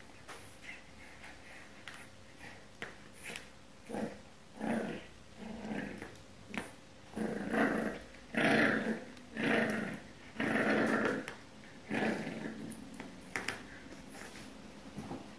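French bulldog puppy growling in about ten short bursts, starting about four seconds in and loudest in the middle.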